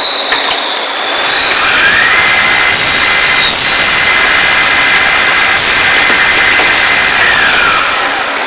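Turret lathe running with a loud, steady machine noise. A whine rises about a second and a half in, holds steady, and falls away again near the end.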